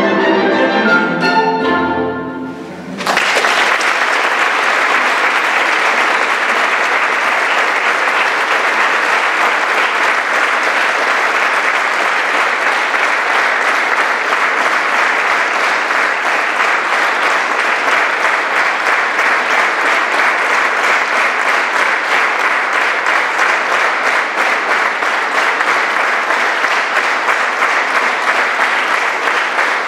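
A small ensemble of bowed strings and a woodwind plays the closing notes of a piece, the last low note dying away, and about three seconds in the audience bursts into applause that goes on steadily.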